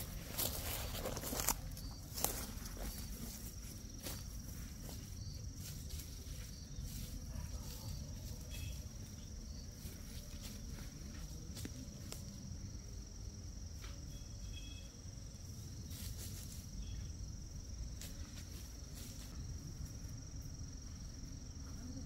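Rustling steps in dry leaf litter for the first two seconds, then a single steady, high-pitched insect trill held without a break over a low outdoor rumble, with a couple of brief chirps in the middle.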